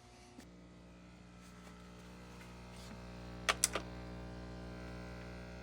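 Furnace humming steadily. The hum comes on with a click about half a second in and grows slowly louder. Three sharp clicks come about three and a half seconds in.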